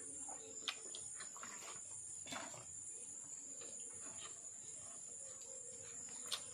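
A steady, high-pitched chorus of insects trilling without a break, with a few faint clicks and knocks over it.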